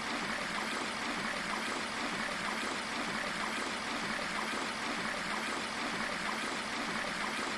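Steady rush of water pouring from a spout into a stone spring tank.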